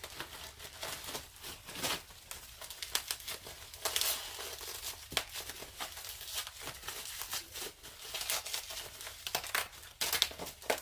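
Plastic bubble wrap being crinkled and pulled apart by hand, with an irregular run of crackles and rustles.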